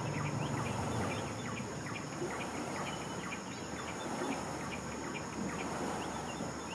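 Rainforest insects droning steadily at a high pitch, with many short, high chirps repeating throughout. A low rumble underneath is strongest in the first second or so.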